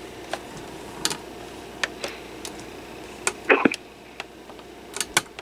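Plastic buttons on an AT&T 5655 answering machine base being pressed, a string of irregular clicks with the loudest cluster about three and a half seconds in, over a faint steady hum.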